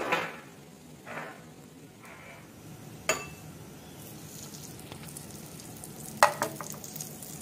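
Butter melting and sizzling softly in a hot non-stick frying pan, with a sharp clink of a utensil against the pan about three seconds in and two more near the end.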